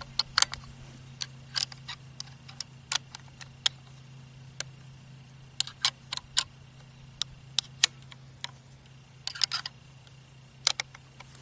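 Scattered light clicks and clacks, about twenty spread irregularly with a small cluster near the end, from hands working the action and scope of a Howa 1500 6.5 Creedmoor bolt-action rifle.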